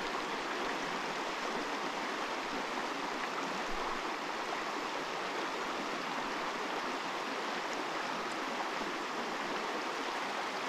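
Steady rushing of a flowing trout stream.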